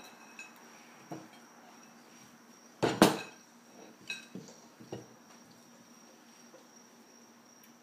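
Plastic sippy cup knocking on a wooden table: one loud double knock about three seconds in, with a few lighter taps and clicks before and after. A faint steady high tone runs underneath.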